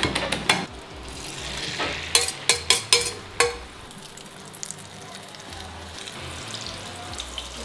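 Fork whisking eggs against a stainless steel bowl, a quick run of clinks, then beaten egg sizzling as it fries in a pan. A few sharp clicks of a spatula against the pan come about two to three seconds in, and the frying sizzle then runs on steadily.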